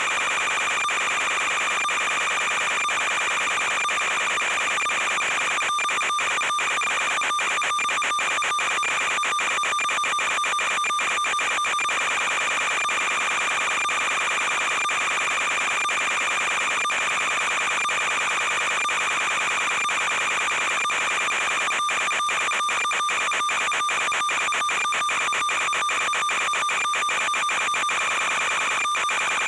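Steady high-pitched electronic whine over hiss from the analog 5.8 GHz FPV video link's audio channel. The pitch does not change as the quadcopter climbs and descends. Two stretches of rapid, brief dropouts break it up, the sign of a momentarily weak or glitching radio link.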